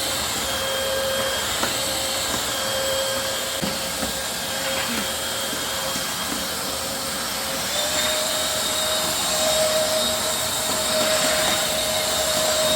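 Wet-dry vacuum mop running: a steady motor whine over a suction hiss. The whine steps up slightly in pitch about eight seconds in.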